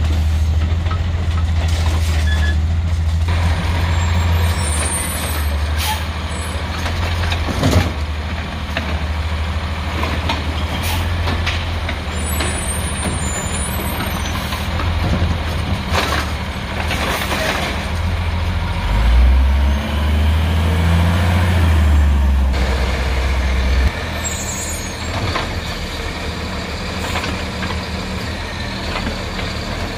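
Diesel engine of an automated side-loader garbage truck running steadily while the hydraulic arm works, with sharp knocks of carts being tipped and set down, and a few short hisses of the air brakes.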